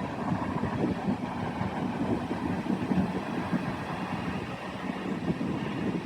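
A train rolling past, a steady low rumble with irregular knocks from the cars.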